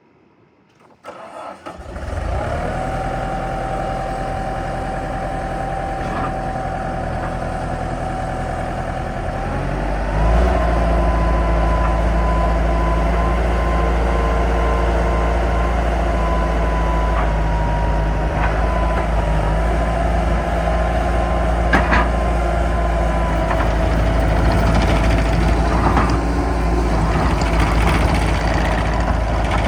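2002 Bobcat T200 skid steer's diesel engine starting about a second in and idling, then stepping up to a higher, steady engine speed about ten seconds in, with a steady whine that rises in pitch with it. One sharp click sounds over the engine later on.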